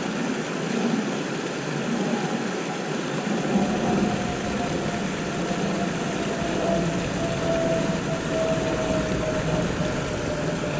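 Water rushing steadily over a small concrete weir into the canal, with a faint hum that slowly falls in pitch through most of the stretch.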